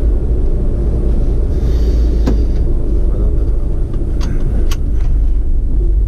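Steady low rumble of a road vehicle driving, heard from on board. A few sharp clicks come through about two seconds in and twice more a little after four seconds in.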